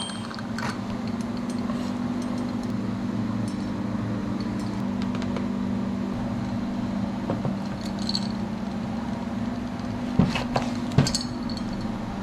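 A steady low hum with a few light clinks of metal or glass cookware, one about eight seconds in and a cluster near the end.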